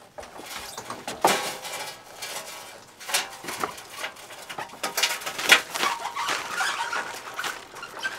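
Dirt bike being wheeled backwards out of a van and down a metal loading ramp: irregular clunks, knocks and rattles of the bike and ramp, loudest about a second in and again around five seconds in.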